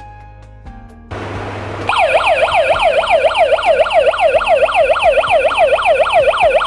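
D3D D9 security alarm siren set off in a test, sweeping rapidly up and down at about four sweeps a second. It starts about two seconds in, after a short burst of hiss.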